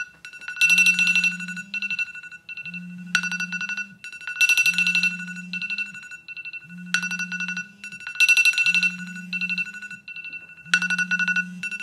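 Several iPhones' alarms going off at once, their chiming alarm tones overlapping in a pattern that repeats about every two seconds over a low buzz.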